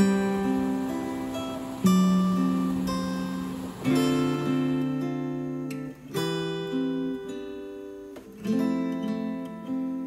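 Background music: acoustic guitar, chords struck about every two seconds and left to ring and fade.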